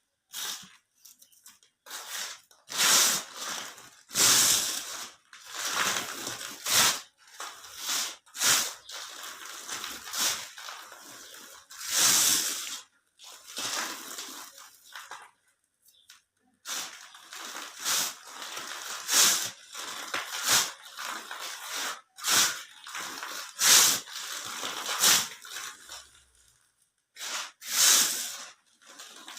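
Soft pink cement cubes crumbling and being crushed: repeated gritty bursts of crunching and crumbling, each about a second long, separated by brief pauses.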